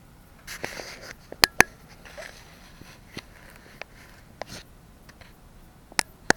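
Handling noise: brief rustling and a few sharp plastic clicks and taps, the loudest two close together about a second and a half in and two more near the end.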